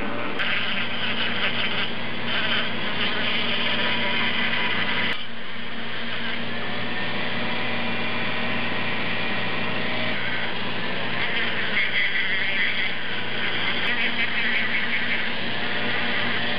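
Small Dremel rotary tool with a sanding drum, buzzing at low speed as it polishes the inside of a cast-iron rotary engine intake port. A steady hum sits under a scratchy sanding noise that rises and falls as the drum touches the metal, with a brief break about five seconds in.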